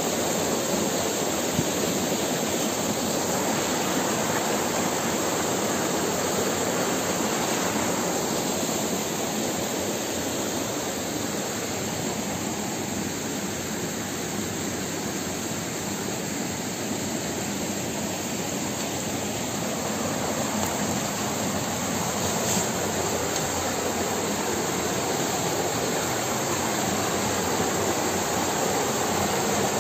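Steady, even rushing noise with no clear rhythm or pitch.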